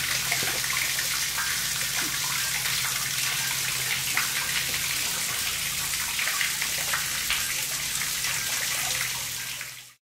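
Groundwater running into a concrete manhole through its broken seals: a steady rushing trickle with scattered drips and splashes, over a steady low hum. It fades out near the end.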